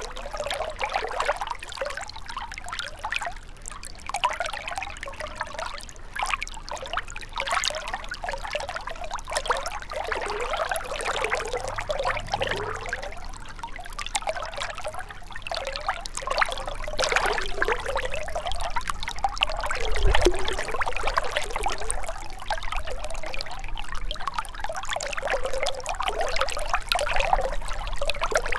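Shallow river water trickling and burbling over stones, a continuous uneven babble with a brief low thud about twenty seconds in.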